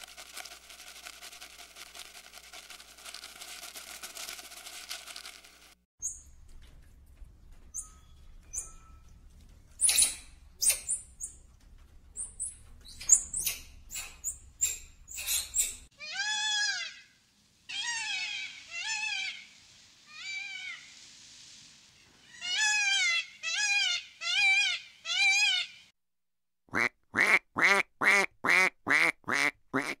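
An Indian peafowl (peacock) calls in a series of rising-and-falling calls, four spaced ones followed by five louder ones in quick succession. After a short pause, a paradise shelduck gives a rapid run of about nine honking calls, roughly three a second. Before the peacock, scattered clicks and short chirps.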